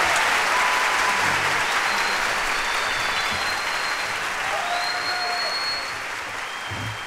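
Large audience applauding in a theatre, the applause slowly dying down.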